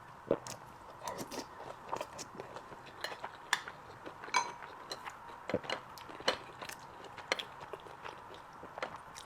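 Close-miked chewing and biting: irregular, quick wet clicks and smacks of a mouth eating food.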